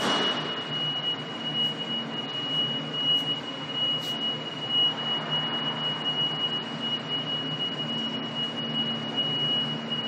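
A steady, high-pitched electronic tone holds without a break over a constant low machinery hum.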